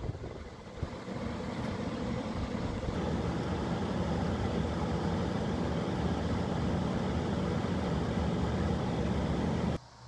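LG window air conditioner running: a steady fan rush over a low, even hum from the unit's motor and compressor. The sound cuts off suddenly near the end.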